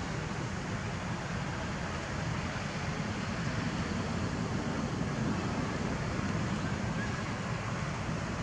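Steady outdoor background noise: a low rumble with hiss, with no distinct event standing out.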